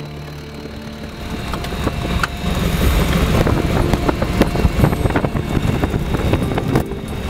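De Havilland Chipmunk piston engine heard from inside the cockpit, getting louder about a second and a half in as power comes up. A steady low rumble, with many small knocks and rattles throughout.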